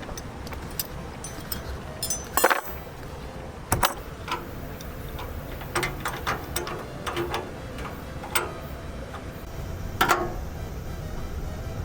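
Irregular clicks and light knocks of hand work, likely tools and metal parts during a repair. The loudest are short ringing clinks about two and a half, four and ten seconds in.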